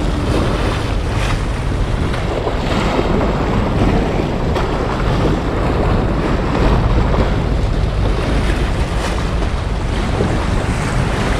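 Strong wind buffeting the microphone over a choppy sea, with waves washing and splashing against the breakwater just below.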